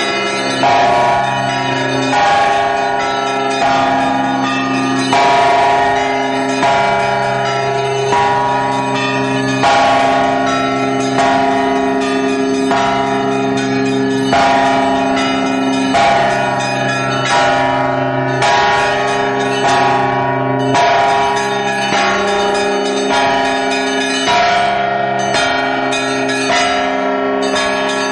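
Russian Orthodox church bells rung by hand from the belfry: a heavy stroke about every second and a half, with smaller bells struck in quick rhythmic patterns among them. The low tones of the larger bells ring on between strokes.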